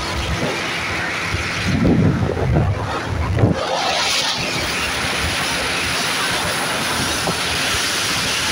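Yamaha 40 hp tiller outboard running flat out with a 15-pitch propeller fitted, pushing a small boat along at speed. Wind buffets the microphone in gusts and water rushes past the hull, largely covering the engine.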